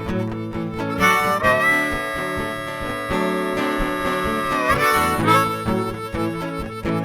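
Instrumental break in a blues-rock song: a harmonica solo over guitar accompaniment. Through the middle the harmonica holds one long note that bends down near its end, between shorter phrases.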